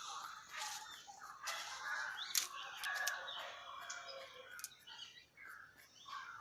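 Birds calling in the background, quiet and irregular, with a few sharp clicks in the middle.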